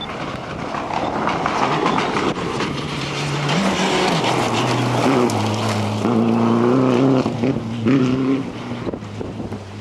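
Rally car engine running at high revs. Its pitch steps up and down with gear changes and holds steady for stretches, over a constant rushing noise.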